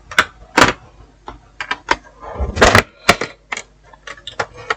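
Irregular sharp clicks and taps of a laptop's plastic casing and parts being handled and worked on during disassembly.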